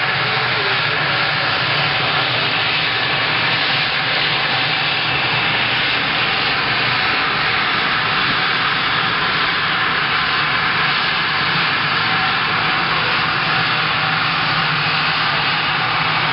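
Twin-engine business jet taxiing, its jet engines running with a steady, loud noise.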